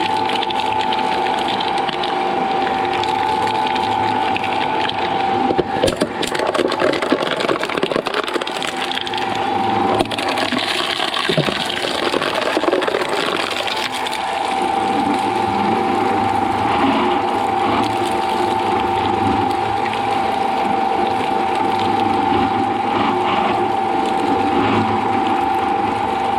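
Shredder machine running with a steady whine. For several seconds in the middle, material going through the cutters brings a stretch of cracking and knocking while the whine breaks up, then the machine runs on evenly.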